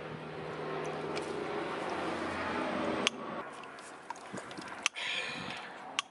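PEX crimping tool squeezing crimp rings onto the pipe at a brass shutoff valve, with sharp metal clicks about three seconds in, near five seconds and near the end. A steady low hum, like a motor running, builds underneath in the first half and fades after the first click.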